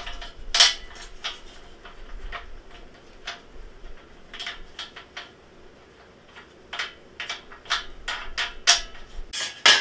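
Irregular light clicks and knocks of a bolt, plastic wing nut and steel frame parts being handled and tightened on a Black+Decker Workmate 125 folding workbench.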